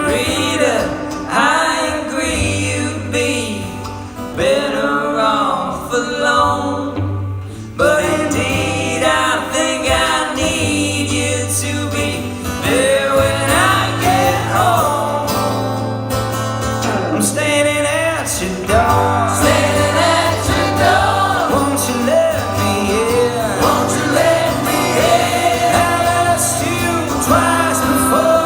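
Live band music: a sung vocal line over guitars and a steady bass.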